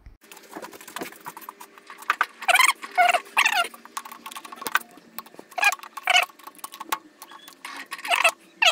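Clicks and metallic taps of a four-jaw lathe chuck being adjusted by hand while the workpiece is centred against a dial indicator. Several short wavering squeals come in bursts, about two and a half seconds in, near six seconds and again near the end.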